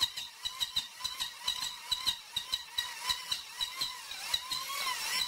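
Makita electric hand planer running with a steady high whine, its blades cutting the end of a round wooden pole in quick repeated strokes, about four a second. The whine sags and recovers briefly near the end.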